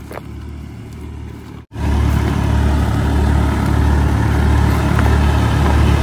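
Tractor engine running steadily as it drives a wheat thresher during threshing. It is faint and distant at first, then after a sudden break a little under two seconds in it is loud and close, with a strong low hum.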